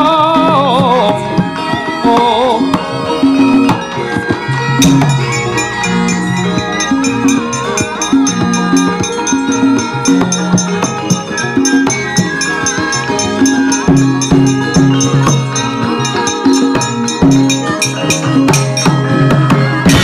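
Javanese gamelan playing a steady pattern of mallet-struck metal keys and gongs. From about five seconds in, the dalang's kepyak metal plates add rapid rattling clicks over it. A wavering held note fades out in the first second.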